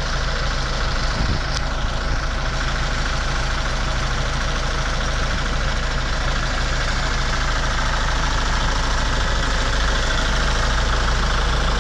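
Kubota L6060 tractor's four-cylinder diesel engine idling steadily.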